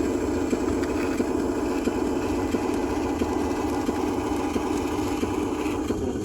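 Electric drive motors and gearboxes of a radio-controlled Huina construction model running steadily: a continuous whirring buzz.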